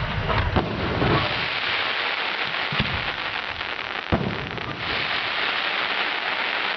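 Fireworks going off: a dense, continuous crackle with a few sharp bangs, near the start, a little before the middle and just past it.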